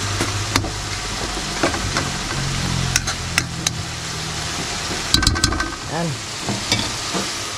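Chopped tomatoes sizzling as they cook down in an aluminium wok, stirred with a metal spoon that scrapes and clicks against the pan several times, with a quick run of clicks a little past halfway.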